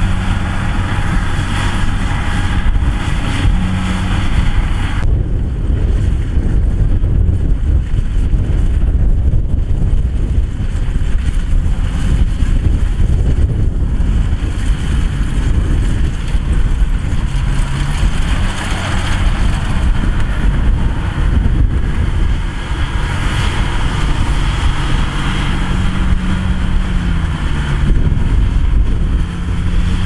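Kubota DC108X combine harvester's diesel engine running steadily under load, a deep continuous rumble. Its note rises a little about halfway through and drops back near the end.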